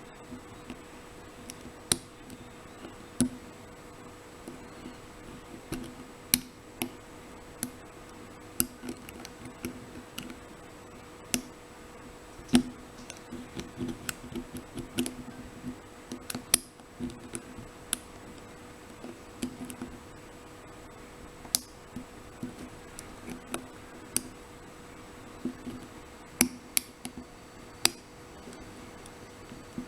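Lock pick and tension wrench working the pins of an Abus 83/45 padlock during single-pin picking: small, irregular metallic clicks and taps, some sharper than others, over a faint steady hum.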